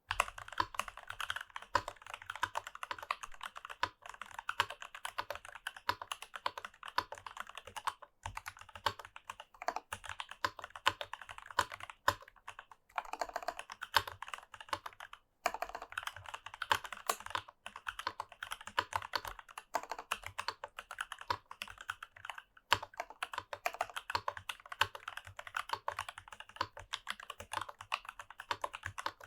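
Fast, continuous typing on a Rama Works U80-A mechanical keyboard with unlubed stock C3 Tangerine linear switches in a brass plate and GMK keycaps: a dense run of keystroke clacks, broken by a few brief pauses.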